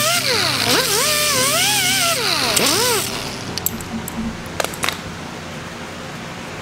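A sanding disc on a rotary power tool whining and hissing against the steel of a hammer head, its pitch dipping and recovering as it is pressed in and eased off; it stops about three seconds in. Background music continues underneath, with a couple of sharp clicks a little later.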